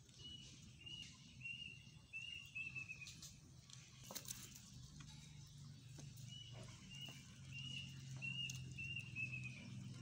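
Chickens pecking mash from a trough, with scattered soft taps, while a small bird calls twice in a run of about six short, slightly falling high notes. A low steady hum sits underneath.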